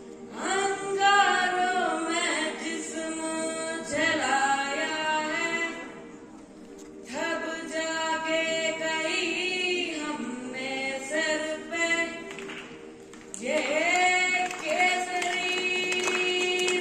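A boy singing a Telugu song solo into a microphone, without accompaniment, in long phrases with short breaks about six and thirteen seconds in.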